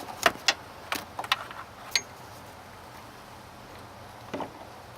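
A quick series of sharp clicks and knocks in the first two seconds, then a single small knock near the end. These are hard parts being handled while a funnel is set into the transmission dipstick tube.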